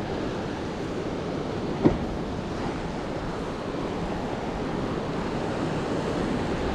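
Ocean swell washing and surging against a rock ledge in a steady rush, with wind buffeting the microphone. About two seconds in, a short rising squeak.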